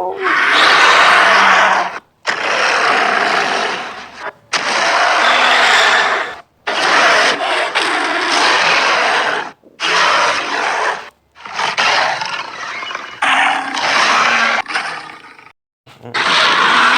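A string of giant-monster (kaiju) roar sound effects, one after another: about eight separate loud, rasping roars, each a second or two long, with short silent gaps between them.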